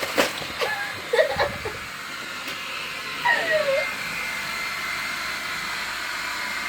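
Hair dryer blowing, switched on about three seconds in and then running steadily with a thin high whine. Before it come a few clicks and short vocal sounds.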